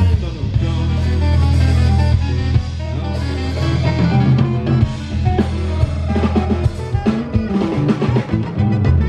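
Live jazz band playing an instrumental passage: a saxophone plays the melody over drum kit and electric bass guitar.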